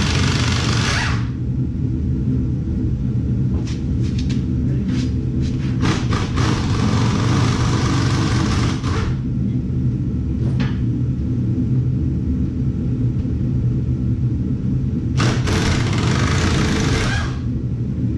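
A vehicle engine running steadily with a low hum, broken three times by a second or more of hissing noise with clicks.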